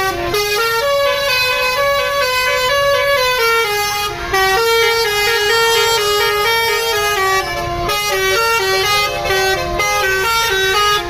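Bus's Basuri 'telolet' multi-tone musical horn playing a quick melody, one note after another without a break.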